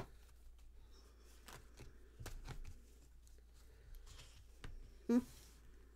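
Tarot cards being handled and laid out on a wooden table: faint rustles and light taps. A short voiced hum or murmur comes about five seconds in.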